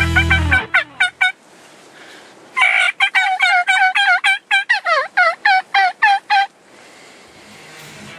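Wild Rio Grande turkey calling: a brief run of quick notes, then a longer series of rapid notes that each drop in pitch, lasting about four seconds.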